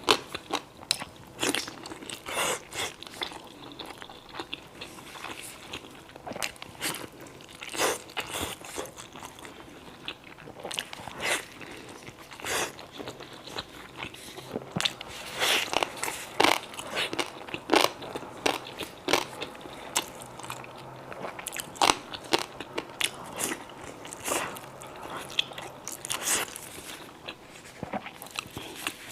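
Someone biting and chewing crunchy dried radish pickle, with a run of irregular sharp crunches.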